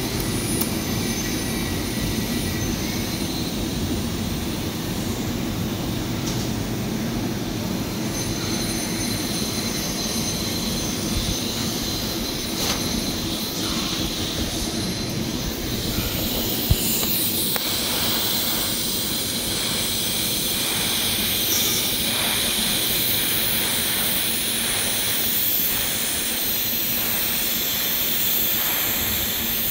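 Steady loud workshop machinery rumble. About halfway through, the hiss of a TIG welding arc on carbon steel pipe joins it, with faint regular pulses.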